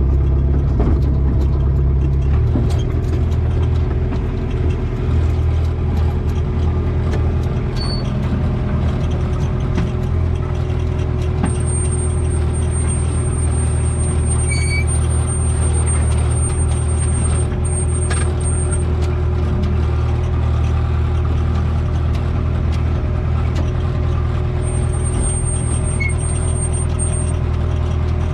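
Takeuchi TB45 mini excavator's diesel engine running steadily while the machine is driven to test its newly installed drive. A thin high squeal comes and goes twice.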